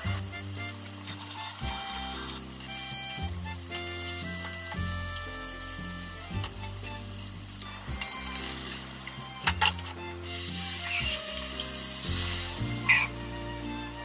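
Hamburg steak patties sizzling as they fry in a frying pan. The sizzle is louder in the second half, with a couple of sharp clicks, over light background music.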